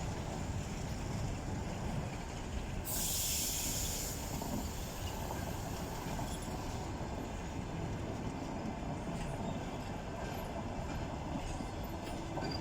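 Passenger train hauled by an EP1 electric locomotive rolling slowly into a station, a steady low rumble of wheels on rails. About three seconds in, a sharp hiss lasting about a second stands out as the loudest sound.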